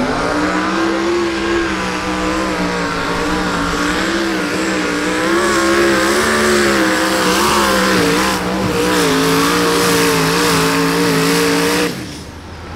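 Twin-turbocharged small-block V8 of a mini rod pulling tractor running flat out under load as it drags the weight sled, its note holding steady with a slight waver. The engine note cuts off abruptly near the end as the pull finishes.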